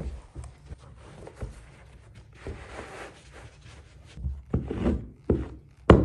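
Hand-work sounds from installing a carpet stair runner: scattered taps and knocks, a short stretch of rubbing about two and a half seconds in, then heavier thumps and a sharp crack near the end.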